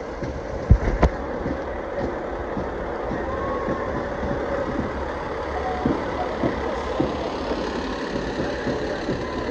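Fire engine's diesel motor running steadily as the tandem-axle pumper rolls slowly past, with two sharp thumps about a second in.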